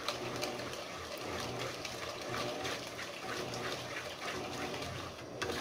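A wooden spoon stirring melted soap base thick with coffee grounds and chocolate powder in a pot: a steady liquid slosh with many small clicks against the pot.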